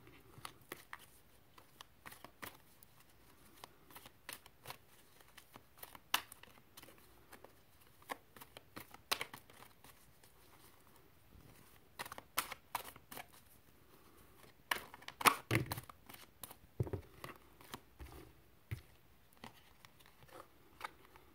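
Tarot cards being handled and laid down: scattered soft clicks, snaps and crinkling, busiest about twelve and fifteen seconds in.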